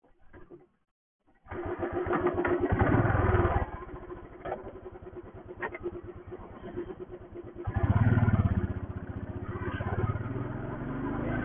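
Royal Enfield Thunderbird's single-cylinder engine starting about a second and a half in, revved, then settling into an idle with a distinct pulse of separate firing strokes. It is revved up twice more near the end.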